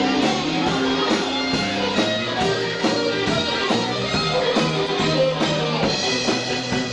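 A band playing an instrumental passage, guitar to the fore over bass notes and a steady drum beat.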